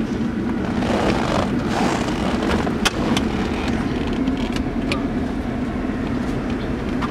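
Steady car rumble heard from inside the cabin: engine and road noise, with a few short sharp clicks in the middle.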